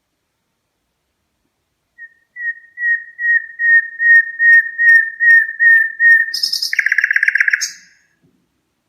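Red-rumped parrot whistling: a string of about a dozen short, clear whistled notes repeated a little over twice a second and growing louder, then a fast rattling trill near the end.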